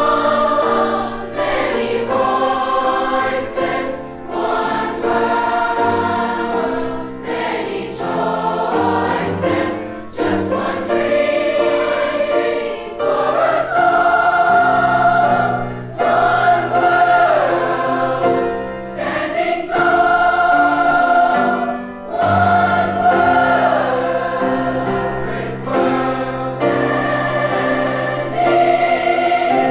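Junior chorus singing, with several voices on different pitches at once and long held notes that change every second or two.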